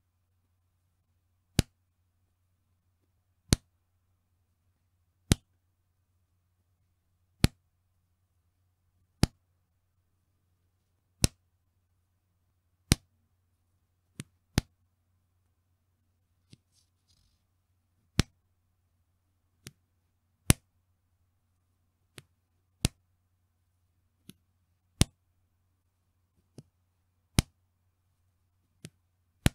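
Bra elastic band snapping with a sharp 'petin' slap, repeated about every two seconds. Some snaps are much softer than others, over a faint low hum.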